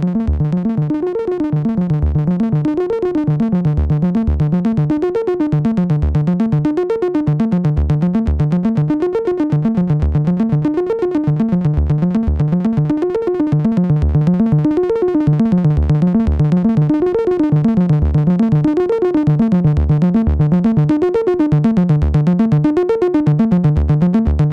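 Eurorack modular synthesizer sequence playing a short melodic pattern that rises and falls and repeats about every two seconds, with a short low pulse under it. It is fed through a matrix mixer into a noisy bucket-brigade delay that feeds back into itself, and into a reverb pedal.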